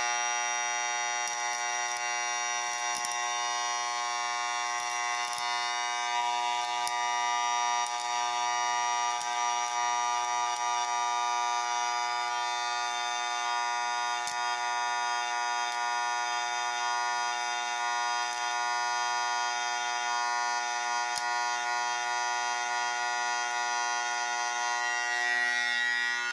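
Electro-spark carbide deposition pen buzzing steadily as it lays down carbide on the steel of a knife's lock bar, with faint crackling clicks from the sparking tip; the buzz cuts off suddenly at the end.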